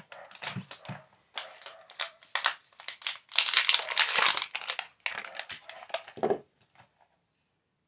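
Plastic battery packaging crinkled and crumpled by hand in irregular bursts, loudest around the middle and stopping about six seconds in.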